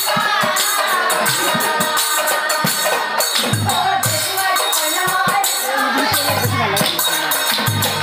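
Nagara naam devotional music: women's voices singing together over fast, steady clashing of hand cymbals, with a few deep nagara drum strokes about halfway through and near the end.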